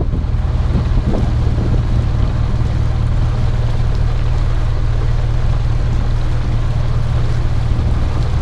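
Motorboat engine running steadily under way, a loud, even low hum, with wind rushing over the microphone.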